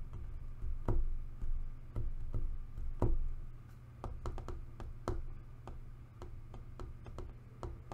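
Irregular light taps and knocks of hands on a desk, about twenty in all, the loudest about one and three seconds in, over a steady low room hum.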